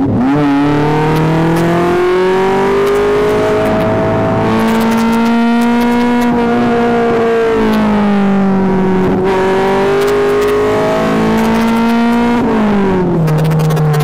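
Modified Alfa Romeo GT engine and exhaust, heard from inside the cabin, accelerating hard: the engine note climbs steadily, sags a little about halfway through, climbs again and then drops sharply near the end.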